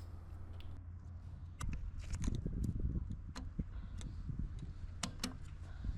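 Scattered light clicks and knocks of metal parts and tools being handled during brake work, over a low steady hum.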